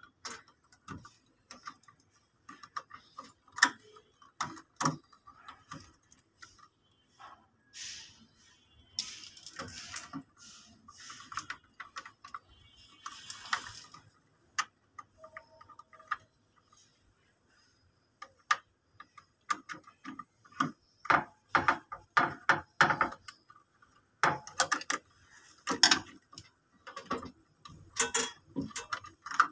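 Irregular clicks, taps and scrapes of a screwdriver and wiring being worked at the terminals inside a metal control panel, with a few brief rustles; the clicks come thicker in the last third.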